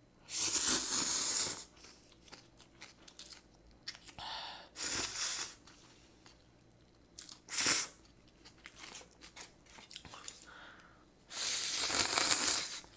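A person slurping instant ramyeon noodles and broth from a small bowl: several loud slurps, the first and the last each more than a second long, with a short, sharp one a little past the middle.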